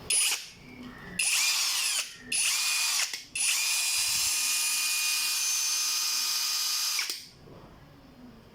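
SUMASU YMS6013B brushless cordless drill's motor running in four bursts, each starting with a rising whine and settling to a steady high pitch. There is a short blip, then two runs of under a second each, then a longer run of nearly four seconds that stops about seven seconds in.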